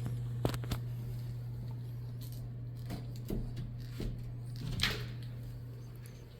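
A steady low hum with a handful of light knocks and clicks scattered through it.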